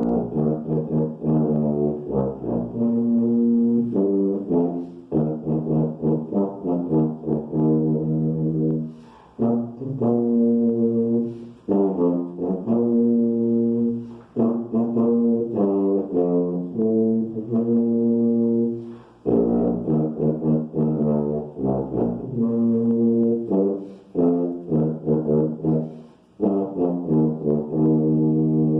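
Yamaha 104 tuba playing a slow hymn melody solo: held, low notes in phrases, with short breaks for breath between them.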